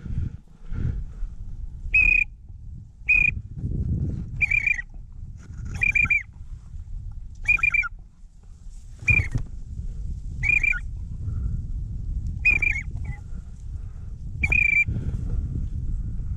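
Geese calling: short, high honks repeated about every one and a half seconds, over a low rumble of wind.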